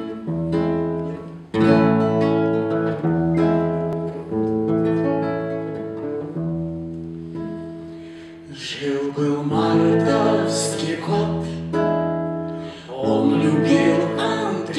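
Acoustic guitar playing a song intro of ringing chords, joined about halfway through by a woman's and a man's voices singing over the guitar.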